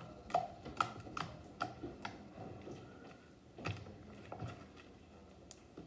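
Slime being stretched and pressed to blow a bubble: a run of small sharp clicks and pops about two a second for the first two seconds, then two heavier pops a little past halfway.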